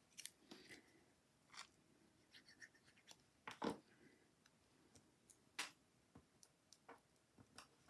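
Near silence with faint handling sounds of paper craft: small cardstock pieces picked up and pressed onto a card on a tabletop, a few short light clicks and scrapes, the loudest about three and a half seconds in.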